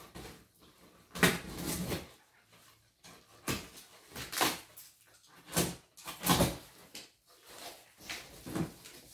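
Packing tape on a cardboard box being slit with a box cutter and torn off, a string of short scraping rips with pauses between them, as the cardboard flaps start to come free.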